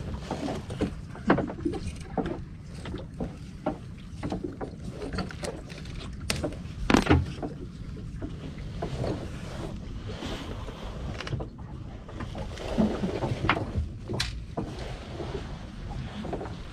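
Steady low rumble of wind and water around a small open boat at sea, with scattered knocks and clicks of gear against the hull; the loudest knock comes about seven seconds in, and another sharp one near fourteen seconds.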